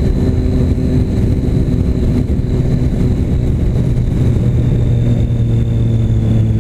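Motorcycle engine running through a new aftermarket Jeskap exhaust at a steady, nearly constant speed, giving a loud rumbling exhaust note.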